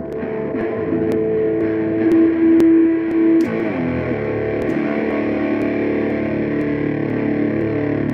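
Instrumental music: a distorted electric guitar through effects, holding a long note that slides down into a sustained, droning chord.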